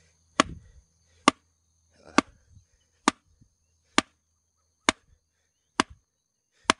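Wooden stake being driven into soft riverbank soil with sharp, evenly spaced blows, about one a second, eight in all.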